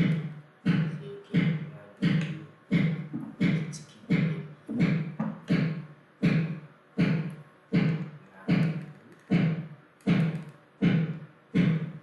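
A sharp knock repeated at an even pace, about one every three-quarters of a second, each with a short low ring that dies away.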